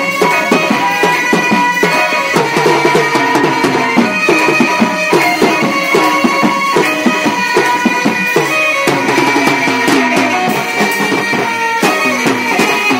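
Loud live Indian folk music: rapid, steady drumming, with a drum played close by, under a wavering melody line.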